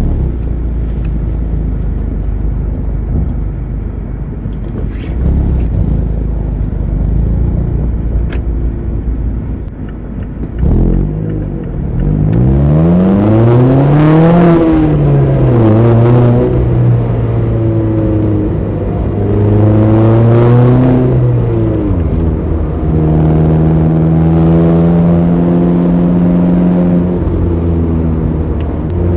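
Mazda ND Roadster (MX-5) four-cylinder engine under way: a low, steady rumble with road noise for about ten seconds, then the engine revs climb steeply under acceleration and the pitch drops with a gear change. It pulls steadily, falls in pitch a little after twenty seconds as the throttle comes off, and then runs on at an even pitch.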